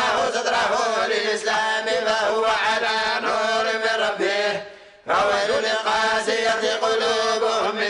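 A group of voices reciting the Quran together in unison, in a slow melodic chant. The chanting phrase fades out a little after four seconds in, and the next phrase starts after a short breath.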